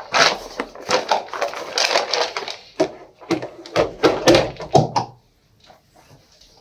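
Knocks and rattling of a plastic compartment case full of soft pastels being handled and moved across the table, a busy clatter that stops about five seconds in.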